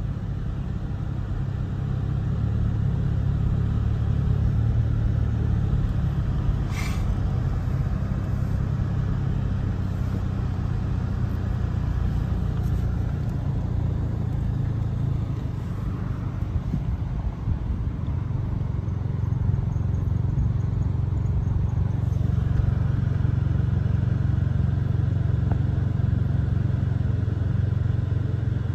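A car being driven, its engine and road noise making a steady low rumble heard from inside the car. There is one short click about seven seconds in.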